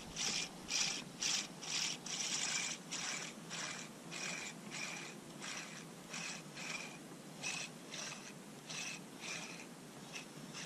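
Spinning reel cranked to retrieve a lure: a rasping whir with each turn of the handle, about two turns a second.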